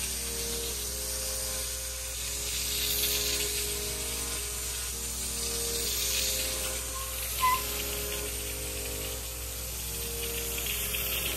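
Steam cleaner's upholstery hand tool spraying and sucking hot water through a sofa's fabric, a steady hiss that swells with each stroke, under soft background music.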